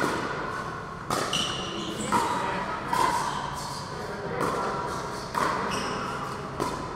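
Pickleball paddles hitting a plastic ball in a rally: sharp pops about once a second, each ringing briefly and echoing in a large hall.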